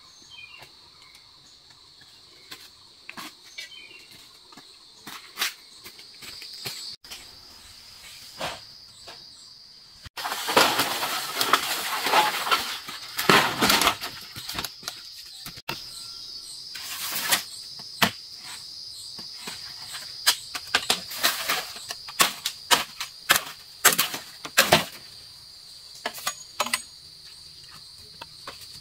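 Insects droning steadily at a high pitch, under scattered sharp knocks and clatter, with a few seconds of loud rustling about ten seconds in.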